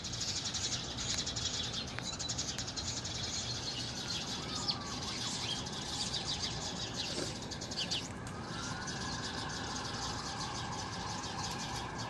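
Street ambience: a steady hum of traffic with small birds chirping, and the faint sliding wail of a distant siren in the second half.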